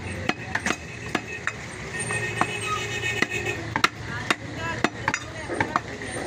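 Butcher's knife striking a wooden stump chopping block while cutting beef: repeated sharp knocks, irregular, about one or two a second.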